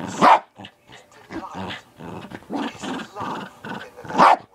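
Small terrier growling and grumbling, with a short loud bark just after the start and another near the end, demanding attention.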